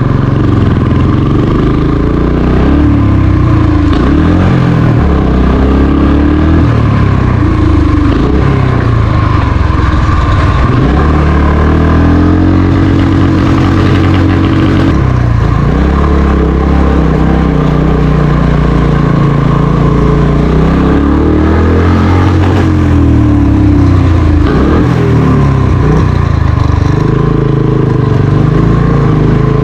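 Motorcycle engine running on the move, its revs rising and falling repeatedly as it is ridden.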